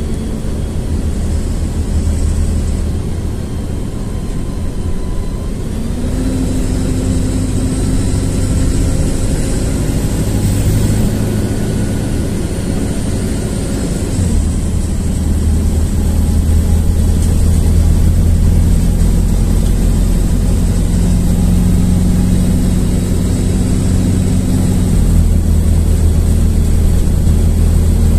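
LiAZ-4292.60 city bus under way, heard from inside: its diesel engine runs steadily, its pitch stepping up and down several times as the bus speeds up and slows, over a thin high whine.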